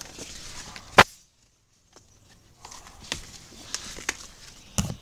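Plant leaves rustling and brushing, with handling knocks from the tablet as it is pushed in among the foliage. A single sharp click about a second in, then a second or so of dead silence before the rustling and small knocks resume.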